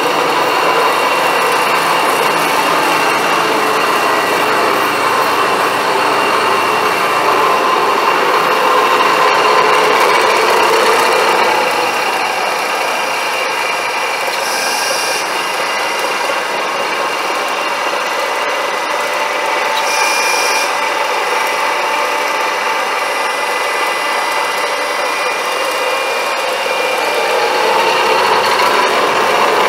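DoAll horizontal metal-cutting bandsaw running steadily, with a whirring drone that is a little louder at first and again near the end. Two brief hiss-like bursts come about fifteen and twenty seconds in.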